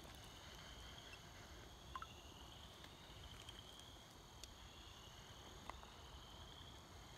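Faint, steady chirring of night insects, with a couple of small clicks.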